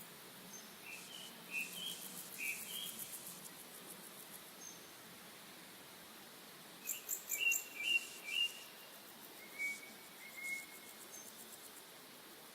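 Nature-sounds recording: a small songbird chirps in two quick runs of short notes a few seconds apart, over high insect trilling and a steady hiss.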